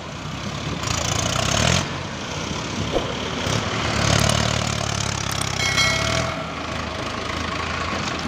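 Mahindra tractor's diesel engine running as the tractor drives through deep paddy-field mud, its note growing stronger and weaker a few times.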